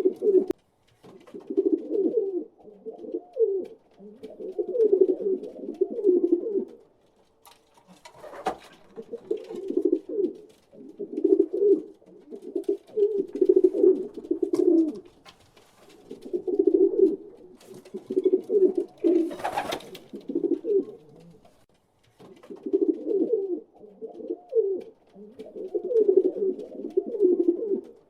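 Pigeons cooing over and over: low rolling coos in phrases of a second or two with short pauses between. A brief burst of noise sounds about 8 seconds in and again, louder, about 19 seconds in.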